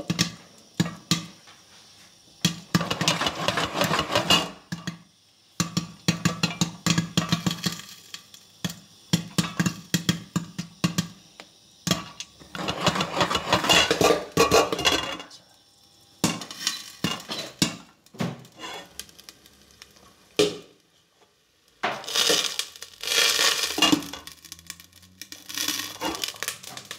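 Popcorn kernels popping inside a covered stainless-steel pot: dense bursts of sharp pops and rattles against the metal lid, coming in several waves a few seconds long with short quieter gaps, as the pot is shaken.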